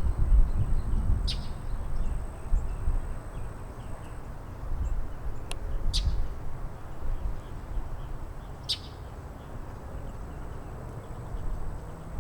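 Northern mockingbird giving short, sharp calls, four in all: one about a second in, two close together around five and a half to six seconds, and one near nine seconds, over a low background rumble.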